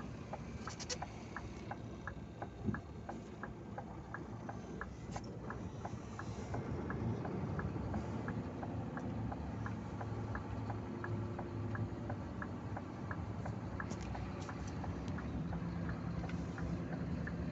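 Truck diesel engine idling, heard from inside the cab, under a steady light ticking about three times a second. The engine note grows a little louder about seven seconds in.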